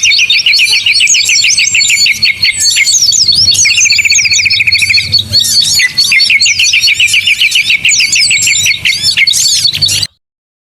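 A bird-lure recording of many small songbirds chirping and twittering over one another, with a fast, even trill that comes in long runs. The sound stops abruptly about ten seconds in.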